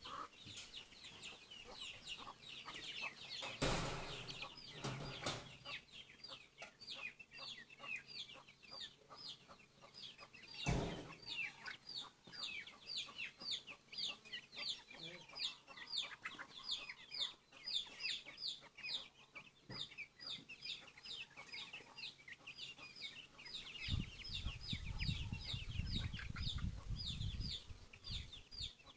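Young chickens peeping steadily as they feed, a rapid stream of short, high, falling chirps. Two knocks cut in at about four and eleven seconds, and a low rumble comes in for a few seconds near the end.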